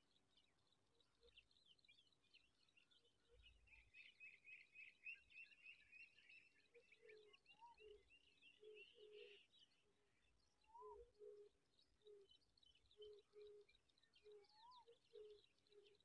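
Faint wild birdsong: dense high twittering and chirping, busiest in the middle, over short low notes repeated irregularly and a few rising whistled calls.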